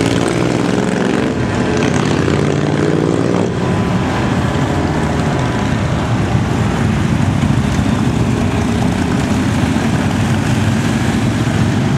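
Several motorcycle engines running and revving as motorcycles ride past, a continuous mix of engine noise whose pitches rise and fall.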